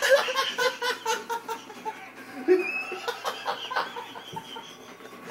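A person laughing in quick pulses, about four a second, fading out over the first two seconds.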